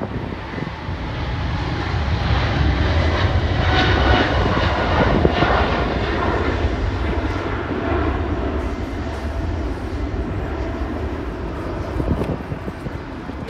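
Air Canada Boeing 777's twin GE90 jet engines at takeoff thrust as it lifts off and climbs out: a steady rumble with a faint whine above it, loudest about four seconds in, then slowly fading as the jet climbs away.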